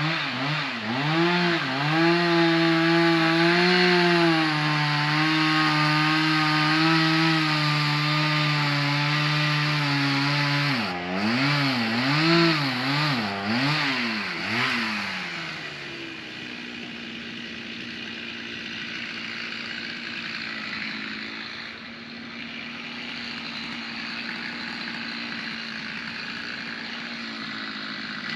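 Two-stroke chainsaw revved a few times, then held at full throttle for about eight seconds as it cuts, revved again several times, then dropping about 16 seconds in to a quieter steady running sound.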